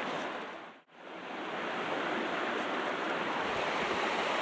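Steady rush of a flowing creek. It cuts out briefly about a second in, then comes back.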